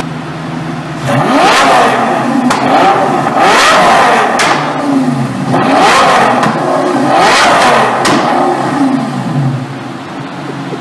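A Lamborghini engine is revved hard, about five times, its pitch rising and falling each time. Sharp pops crack from the exhaust between the revs.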